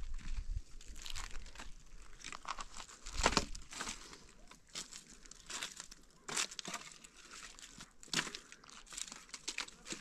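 Dry sticks and twigs being handled and gathered into a pile as firewood: irregular crackling and rustling, with sharper cracks about three seconds in, a little past six seconds and about eight seconds in.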